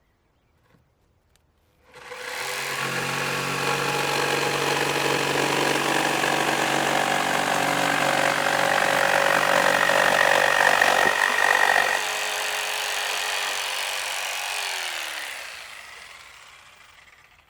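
Electric jigsaw starting up about two seconds in and running loudly with a steady motor whine and blade rattle for about ten seconds. Then it goes quieter, and near the end the motor winds down with a falling pitch and fades out.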